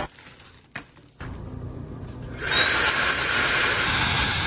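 A Hiluce high-speed hair dryer starting up about halfway through and blowing steadily, a loud even rush of air over a high motor whine. A short click comes just before it.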